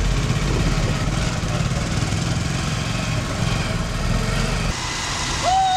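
Motorcycle engine running steadily as the bike is ridden, a low pulsing drone. Near the end it drops away and a steady high held tone begins.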